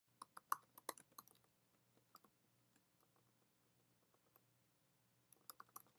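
Faint keystrokes on a computer keyboard as text is typed: a quick run of key clicks, a few scattered taps, then another quick run near the end.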